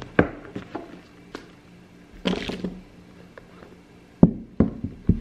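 A handbag and small objects being handled on a bed: a few light clicks and taps, a short rustle about two seconds in, and three knocks in the last second.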